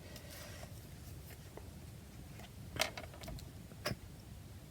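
Quiet handling of paper and card pieces on a craft table, with a few small clicks and taps, the clearest about three and four seconds in.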